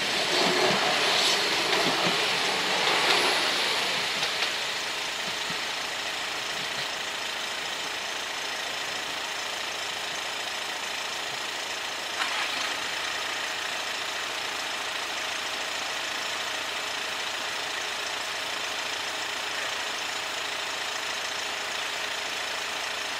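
A passenger train passing over a level crossing for the first four seconds or so, then a car engine idling steadily. A single short click about twelve seconds in.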